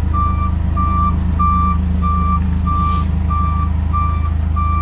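Forklift's warning beeper sounding in even single-pitch beeps, about one and a half a second, over a steady low hum from the running machine.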